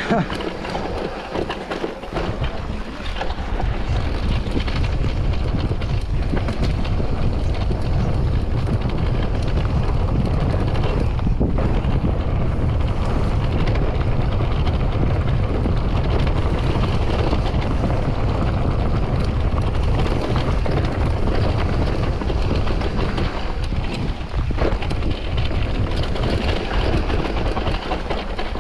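Wind rumbling on the microphone of a mountain bike descending a rough trail, with the bike knocking and rattling over roots and bumps. It grows louder about three seconds in.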